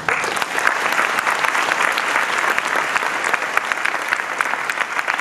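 Audience applauding, with steady, dense clapping.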